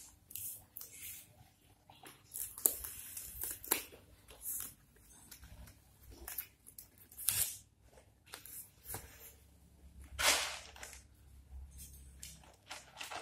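Irregular short rustles and crinkles of folded dong leaves being handled, with rice being scooped by hand from a plastic bowl.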